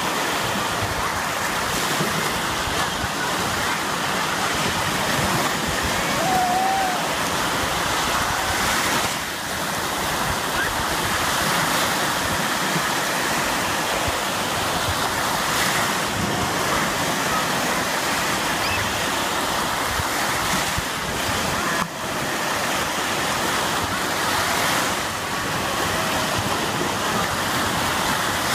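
Small waves washing onto a sandy beach, making a steady surf wash.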